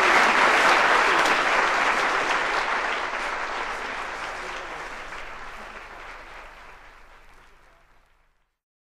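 Audience applause on a live comedy record, fading out steadily to silence over about eight seconds.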